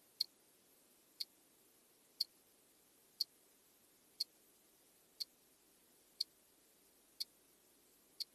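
A clock ticking, one short sharp tick every second with nothing else between the ticks.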